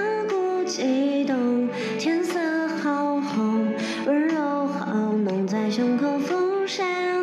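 A woman singing a song into a microphone, holding long notes that slide up and down in pitch.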